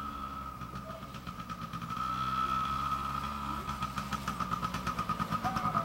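Yamaha PW80's small single-cylinder two-stroke engine running as the dirt bike is ridden across grass, getting louder from about two seconds in as it comes closer, with a fast, even pulsing near the end.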